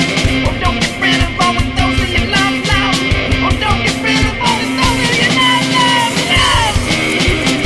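Loud rock music with a steady drum beat and a wavering lead line over it.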